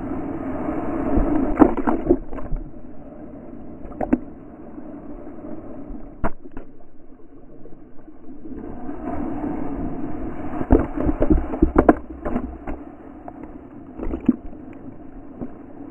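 Small waves breaking and washing over a camera at the waterline, heard up close. The rush of water swells near the start and again from about nine seconds, with sharp knocks and splashes as the water hits the camera.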